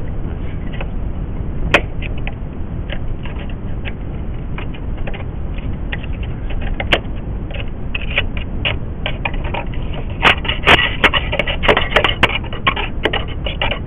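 Irregular sharp clicks and taps, sparse at first and coming thick and fast from about ten seconds in, over a steady low rumble.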